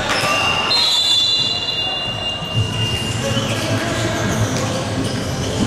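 The sounds of a basketball game on an indoor hardwood court: high drawn-out squeals through the first half, then a basketball bouncing with repeated low thuds. Players' voices echo in the hall.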